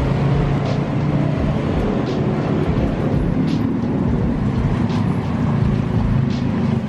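Steady low engine rumble of road traffic, with faint high ticks about every second and a half.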